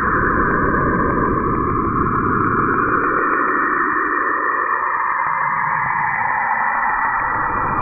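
A steady static-like hiss with a low rumble under it, and a fast, regular ticking that fades out after about three seconds.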